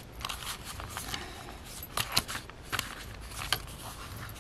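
Paper pages and a card cover being handled and shifted by hand, rustling, with sharp crackles about two and three and a half seconds in.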